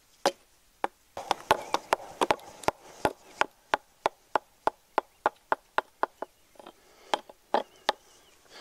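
Hatchet blows chopping into the flat face of a split log half, hewing it flat: a run of sharp strokes, about three a second, that slows to a few scattered blows near the end.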